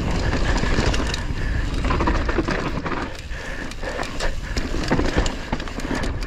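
Mountain bike riding a dirt trail: wind rumbling on the camera microphone and tyres running over dirt and roots, with frequent clicks and rattles from the bike over the bumps.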